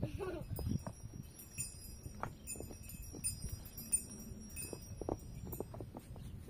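Small metal bells tinkling with high ringing tones, among scattered light knocks, after a short animal call at the very start.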